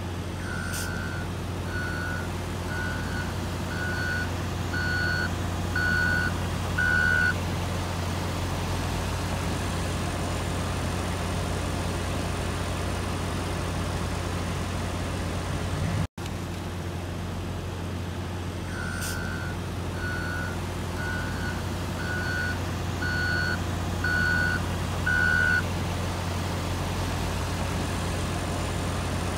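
Front-end loader's diesel engine running steadily with its reversing alarm beeping, about one beep a second in a run of seven, a second run of seven coming later on.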